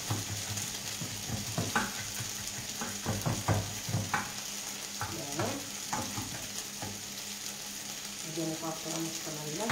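Artichokes sizzling steadily in a frying pan. Scattered knocks of a knife on a wooden cutting board as parsley and garlic are chopped.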